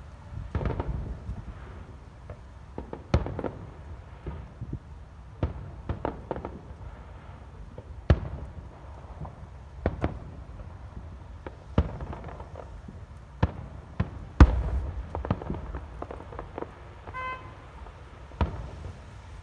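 Aerial firework shells bursting in a display: a dozen or so sharp bangs at irregular intervals, the loudest about three-quarters of the way through.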